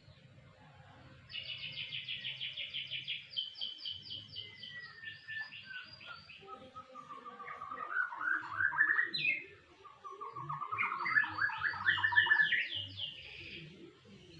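Domestic canary singing: long phrases of rapid trills, high at first, then lower, broken by a short pause about two-thirds of the way through.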